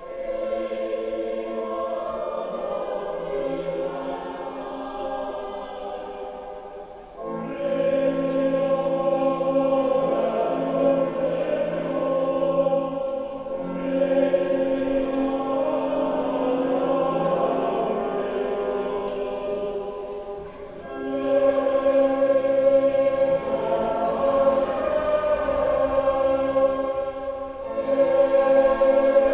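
A choir singing a slow, sustained chant in long held chords, with new phrases starting about every seven seconds. It gets louder from about seven seconds in.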